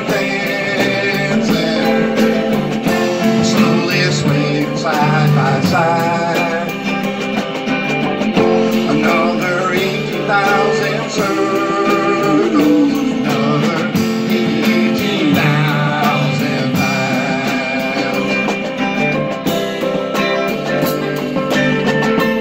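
A two-guitar band playing a song live: an electric guitar and a second guitar playing together, with wavering, vibrato-laden notes from about four seconds in until past the middle.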